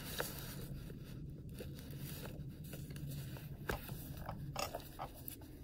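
Thread being pulled through the sewing holes of a hand-bound paper sketchbook: soft rustling and scraping of paper, with one sharp tick a little past halfway.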